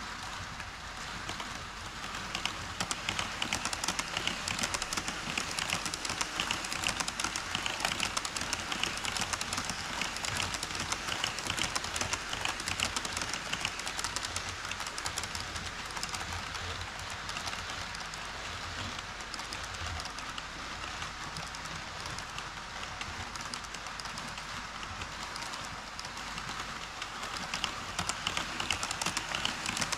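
HO-scale model trains running across a model truss bridge on KATO Unitrack: a continuous rapid clicking and rattling of small metal wheels over the rail joints. The clatter grows louder about two seconds in as an E5 Shinkansen set passes, and again near the end as a container freight train crosses.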